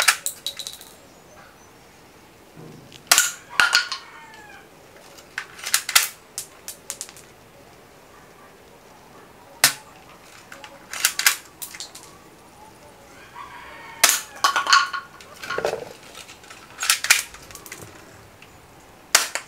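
Restored M16-style rifle firing: sharp cracks, single and in quick runs of two to four, in groups a few seconds apart.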